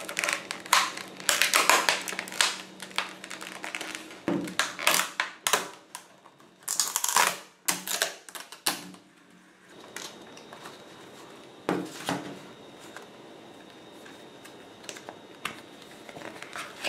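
Clear plastic clamshell blister pack being pried open and handled, with dense crackling and snapping of the stiff plastic, loudest in the first half. After that only scattered clicks and rustles as the cardboard insert is slid out.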